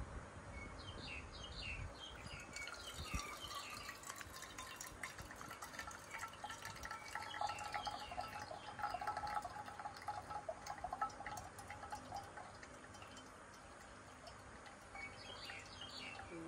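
Tea being poured from a porcelain gaiwan into a glass pitcher: a thin stream of liquid trickling and dripping into the glass.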